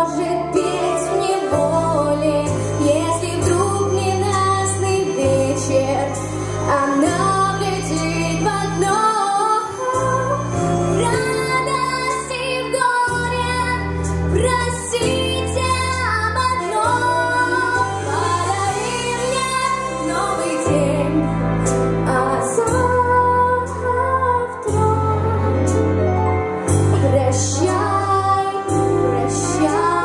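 A girl singing a song into a handheld microphone over recorded musical accompaniment with a steady bass line, her melody gliding up and down.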